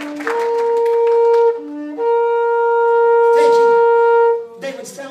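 Shofar blown in two blasts, each opening on a short low note and jumping up to a long, steady high note; the second blast is the longer one and cuts off about four and a half seconds in.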